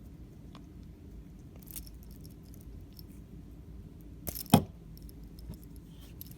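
A metal link watch bracelet and its clasp being handled as the watch is taken off the wrist: scattered faint clicks and clinks, with a louder cluster of sharp metallic clicks about four and a half seconds in.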